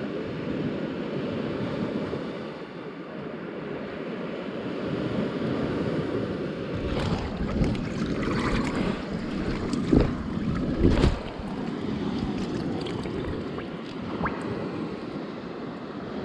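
Ocean surf rushing steadily, with wind buffeting the microphone. Two sharp thumps stand out a little past the middle.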